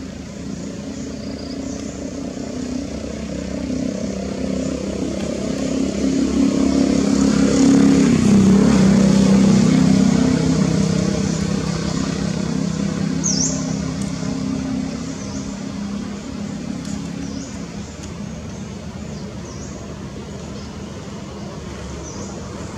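Engine of a passing motor vehicle: a steady low drone that grows louder to a peak about eight to ten seconds in, then fades away.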